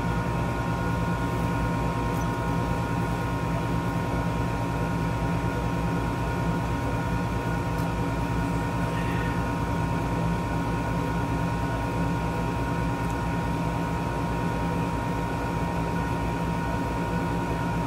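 Steady machine hum with a constant high whine above it, unchanging throughout.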